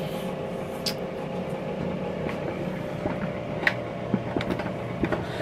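Paula Deen 10 qt digital air fryer running at 400 °F, its fan giving a steady hum, with a few light clicks.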